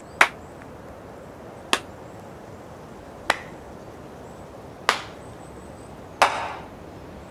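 Five single hand claps, evenly spaced about a second and a half apart, the last with a slightly longer tail.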